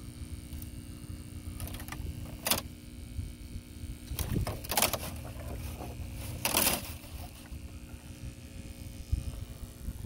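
Small submersible pump in a plastic bucket humming steadily. Wind rumbles on the microphone, and there are a few brief scrapes and knocks, about two and a half, five and six and a half seconds in, as the bucket's plastic lid is handled.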